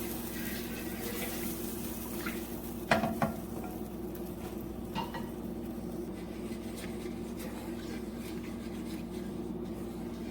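Cooking utensil clinking and scraping against a pan while cream is stirred into fried onion and garlic, with a few sharp knocks about three seconds in, over a steady low hum.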